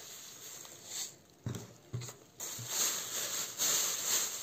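Sand trickling from a glass jar into thin plastic bags, with a couple of soft knocks about halfway. Then the plastic bags rustle and crinkle loudly as they are lifted and gathered.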